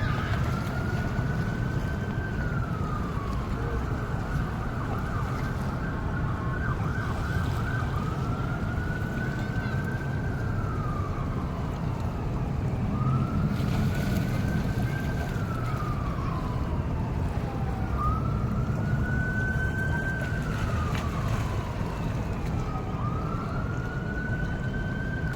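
Emergency vehicle siren in a slow wail, rising, holding and falling in pitch about five times, roughly every five seconds, over a steady low rumble.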